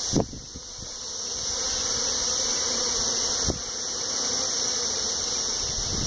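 Honeybees buzzing at the entrance of a top-bar hive: a steady hum that grows louder over the first couple of seconds and then holds. A short knock just after the start and another about three and a half seconds in.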